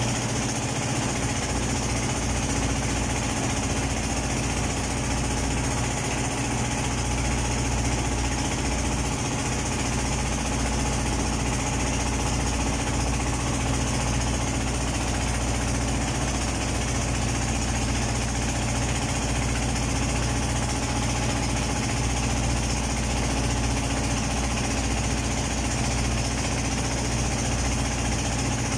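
Boat engine running steadily: a constant low drone under an even hiss.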